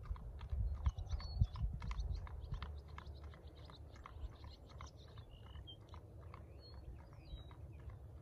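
Hooves of a walking horse on a paved lane, a series of light irregular clicks, with birds chirping a few times and a low rumble in the first couple of seconds.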